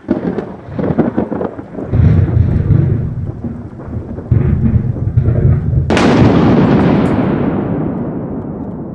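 Thunderstorm sound effects: rain with deep rolling rumbles of thunder, then a sharp thunderclap about six seconds in that rolls away slowly.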